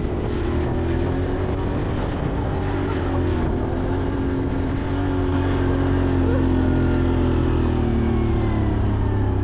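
A motor vehicle's engine running steadily under way, its pitch drifting slowly up and then easing down.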